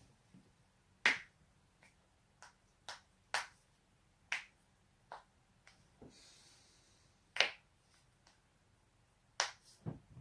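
A person's joints cracking: a series of about a dozen sharp pops at uneven intervals, the loudest about a second in and past the middle. A brief soft hiss comes between them.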